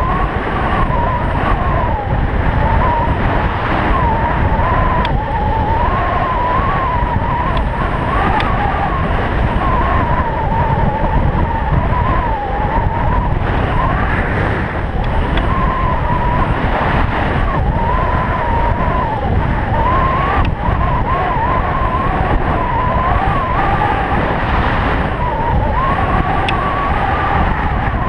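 Stealth Bomber electric bike's rear hub motor whining, its pitch wavering up and down with speed, over loud wind rush on the microphone.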